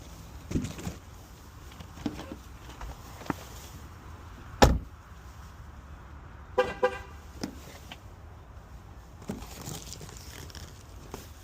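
A car door shuts with a loud thump, then about two seconds later the car horn gives two short chirps as the car is locked. Small knocks and steps come before and after.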